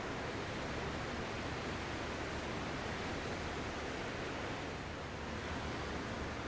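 Ocean surf as a steady, even rushing wash, with little rise and fall and no separate breaking waves.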